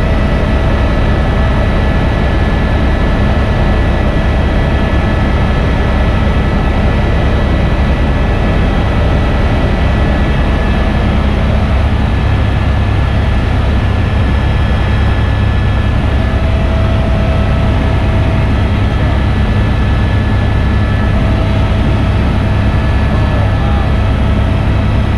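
Helicopter in flight, heard from inside the cabin: a loud, steady drone with thin, steady high whining tones over it.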